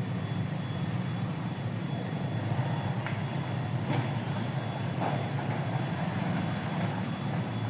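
Small engine running at a steady speed, a continuous low drone.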